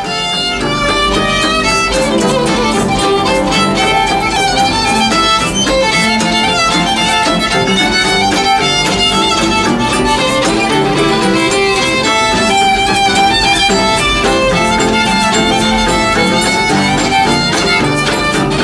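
An acoustic jam of several fiddles playing a fast tune together, with guitar accompaniment.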